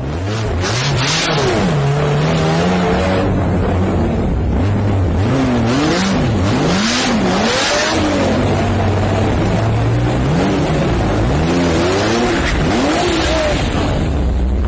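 A car engine running hard and loud, its pitch repeatedly rising and falling as it revs up and drops back, over a steady rush of road and wind noise.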